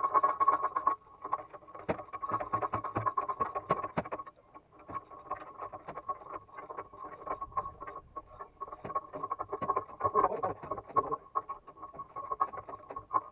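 A power tool tightening bolts on a harvester's bogie track link. It makes a steady high whine with a rapid rattle and frequent metal knocks, dropping out briefly about a second in and again around four seconds in.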